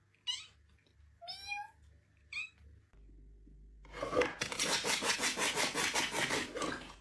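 A domestic cat meowing three short times, each call bending in pitch. After a break, a louder, rough noise pulsing several times a second takes over for the last few seconds.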